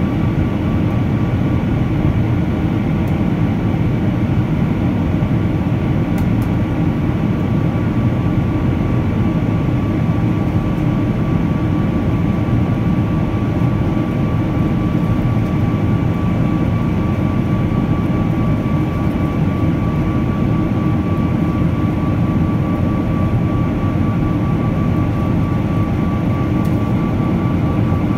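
Boeing 777-300's Rolls-Royce Trent 800 turbofans running steadily at climb power after take-off, heard inside the cabin as a deep, even rush with a steady whine on top.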